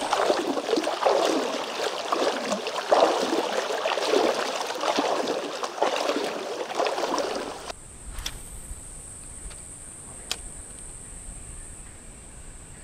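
Legs wading through a river: water sloshing and splashing unevenly for about eight seconds, then stopping suddenly. After that a steady high insect buzz with a couple of faint clicks.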